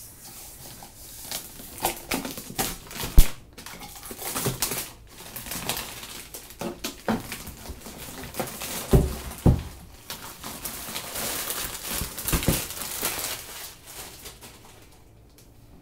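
Clear plastic wrapping crinkling and rustling as it is pulled off a cutting machine, with many small clicks and a few dull knocks; it dies down near the end.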